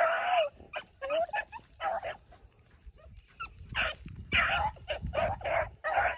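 A pack of beagles baying and yelping on a rabbit's scent trail, the calls coming in quick overlapping bursts. They ease off about two seconds in, then open up again strongly just before the four-second mark.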